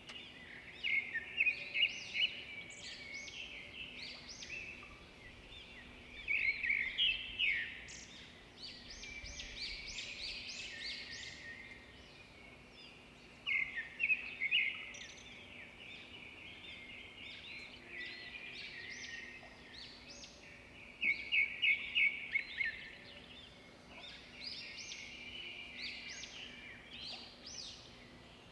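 Small birds singing, overlapping phrases of quick chirps and rapid trills that come in louder bursts every few seconds.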